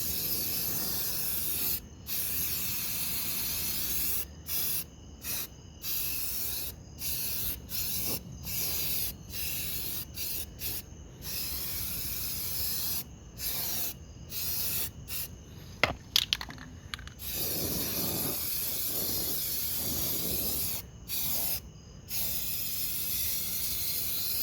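Aerosol spray can of primer spraying in bursts as the nozzle is pressed and released: long sprays at first and near the end, many short spurts in between. A few sharp clicks come about two-thirds of the way through.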